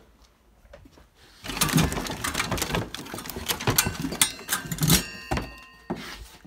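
Things on cluttered garage shelves being shifted and rummaged through by hand while searching for a lamp: a busy run of knocks and clatter starting about a second and a half in, with a brief ringing tone near the end.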